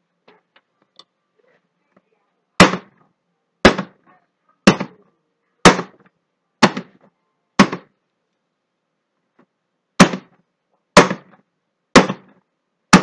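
A filled silicone soap mold is banged down on a wooden countertop again and again, sharp knocks about once a second: six, then a short pause, then four more. This tapping settles fresh cold-process soap into the mold's cavities and knocks out air bubbles.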